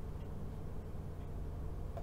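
A low steady hum with a few faint ticks.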